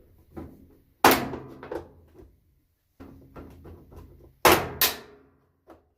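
Top panel of a Kenmore 70 series washing machine being pried up with a screwdriver or pry bar: a loud bang about a second in as it pops loose, some lighter rattling, then two more bangs close together near the end, each ringing briefly.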